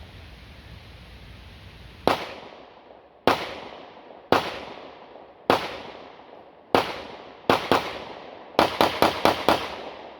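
A pistol fired twelve times in a timed drill: five single shots about a second apart, then a quick pair, then a fast string of five. Each shot trails off in a short echo.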